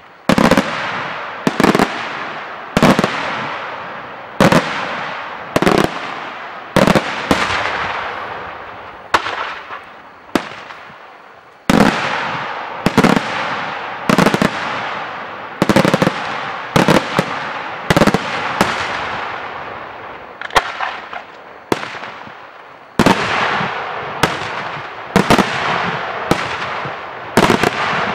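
Daytime aerial fireworks shells bursting overhead in quick succession, with a sharp bang about once a second. Each bang trails off in a long echo.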